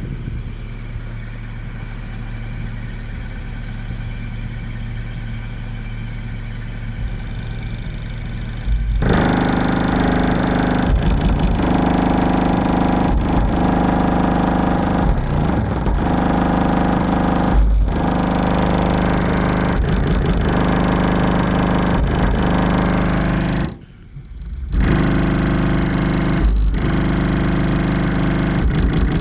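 Kicker car subwoofer playing a 25 Hz bass tone at high volume, heard as a steady, distorted buzz full of overtones. It gets much louder about nine seconds in and cuts out briefly a few times, the longest gap about a second long near the end.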